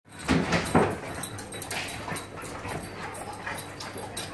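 Dogs vocalising during rough play, a boxer and a Border Collie puppy: two loud sharp sounds less than a second in, then softer whimpering and short yips.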